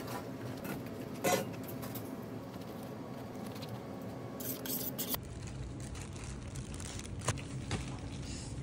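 A knife cutting through raw beef chuck roast on a plastic cutting board, with a sharp knock about a second in, over a steady background hum. About five seconds in the background changes and gloved hands squish a wet spice rub into the meat in a metal pan.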